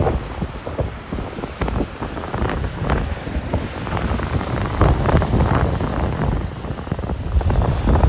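Strong wind buffeting the microphone in an irregular, gusty low rumble, over the wash of small waves breaking on the sand.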